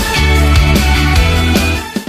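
Background music with a steady beat, dropping away at the very end.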